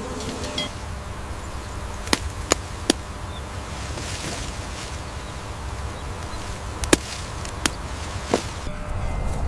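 Six short, sharp clicks or snaps at irregular intervals, with a steady low rumble underneath.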